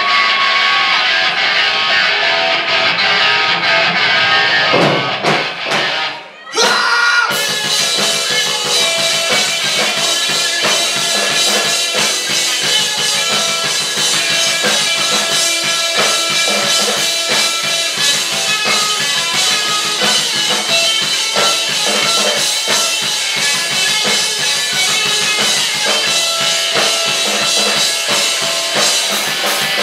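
Live rock band playing on electric guitar, electric bass and drum kit. About six seconds in the music drops out briefly behind a rising sweep, then the full band comes back in with drums.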